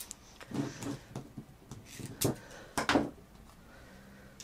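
Handling noise from toys and their plastic packaging being moved and set down: a few light knocks and clatters, the sharpest about two and three seconds in.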